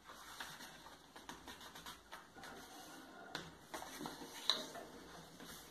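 Faint rustling of a square sheet of origami paper being folded and pressed flat by hand, with scattered light ticks as the creases are run down.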